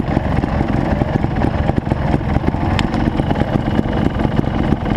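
Trials motorcycle engine idling steadily, with a single sharp tick about three seconds in.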